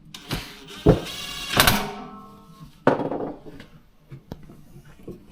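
Sharp knocks and clanks, each followed by a briefly ringing tone, as metal parts of a manual tile cutter are handled. The loudest clank comes about a second in.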